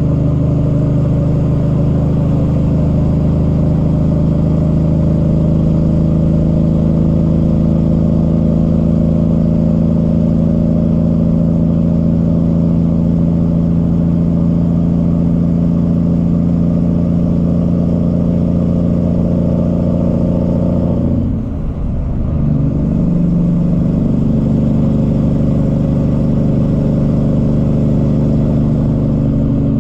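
Cummins ISX diesel in a Peterbilt 379 semi truck running steadily at cruise under load. About 21 seconds in, its note dips and comes back at a slightly different pitch, as at a gear change.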